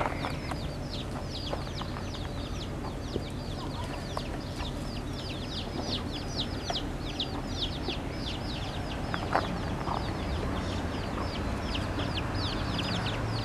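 Chicks peeping rapidly and continuously, each peep a short, high note falling in pitch, several a second.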